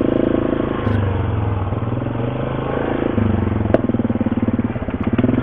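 ATV engine running at low speed, its note shifting a couple of times as the throttle changes, with a single sharp click partway through.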